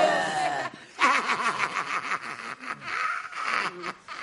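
A woman's loud, high shout falls in pitch and tails off. About a second in, loud laughter starts, a quick run of pulsed "ha-ha" bursts.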